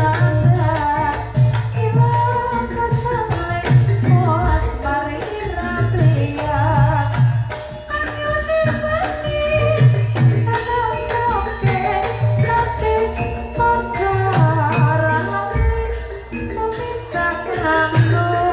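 Javanese gamelan music for a lengger dance: a wavering vocal melody over ringing pitched percussion, with regular low drum strokes driving the beat.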